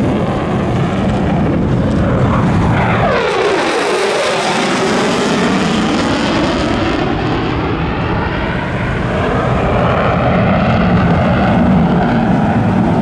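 Military jet making a low, loud flypast: steady jet noise with a sweep falling in pitch about three seconds in as it goes by, then continuing loud as it recedes.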